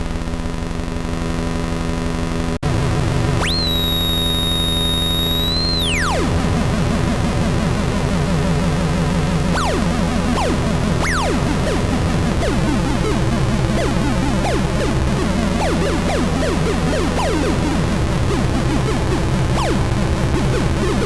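Electronic synthesizer music: a droning bass that shifts pitch every few seconds, a high whistling tone that rises, holds for a couple of seconds and falls away, then many short falling zaps scattered over the drone.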